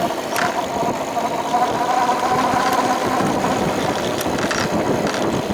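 Electric bike motor whining steadily under load while climbing a steep hill, over a rushing noise of wind and road, with a few faint clicks.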